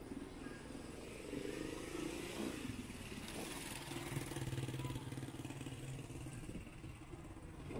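Vehicles driving past on the street, their engines running close by. A low engine note is strongest from about four to six and a half seconds in.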